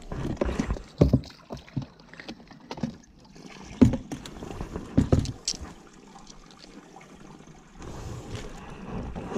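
A plastic cooler box handled and tipped over to empty its water onto concrete: sloshing and splashing water with knocks and thumps of the box, the loudest about 4 and 5 seconds in.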